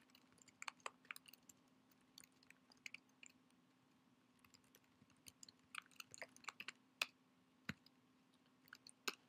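Faint typing on a computer keyboard: quiet, irregular keystroke clicks in short runs.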